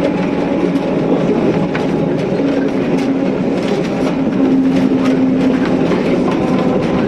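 Snaefell Mountain Railway electric tramcar running along the track, heard from inside the driver's cab: a steady rumble of wheels on rail with a low hum that comes and goes and a few light clicks.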